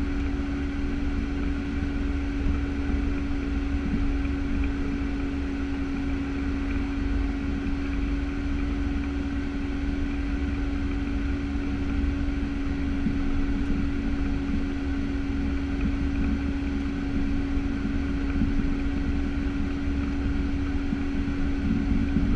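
The twin Pratt & Whitney PT6A turboprop engines and propellers of a Piper PA-31T Cheyenne II are running at taxi power, heard inside the cockpit. They make a steady drone with one constant hum over a low rumble.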